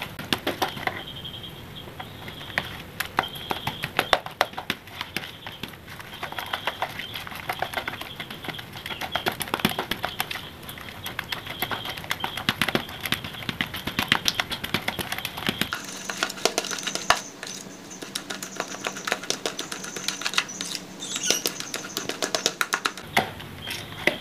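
Metal spoon stirring a wet egg-and-grated-bait mixture in a plastic bowl: a fast, uneven run of clicks and taps as the spoon scrapes and knocks against the bowl.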